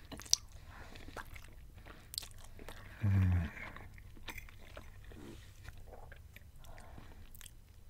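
Close-miked eating of spaghetti: the slurp of a forkful of noodles, then wet chewing with many small mouth clicks. About three seconds in comes a brief low 'mmm' hum through a closed mouth, the loudest sound.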